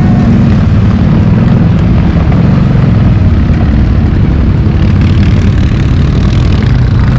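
CFmoto X8 ATV's V-twin engine running steadily at low speed, a loud, even low engine drone.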